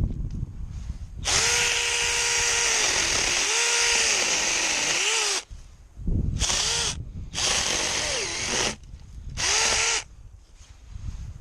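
Cordless mini chainsaw's electric motor and chain running in trigger bursts while cutting: one long run of about four seconds whose pitch keeps sagging as the chain bogs down in the wood, then three shorter bursts. There are a couple of low thuds, one at the start and one about six seconds in.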